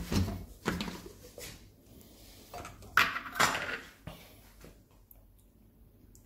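Several hard plastic knocks and clunks as a Kenwood blender's jug, base and lid are handled on a worktop, the loudest about three seconds in. The blender motor is not running, and the last second and a half is quieter.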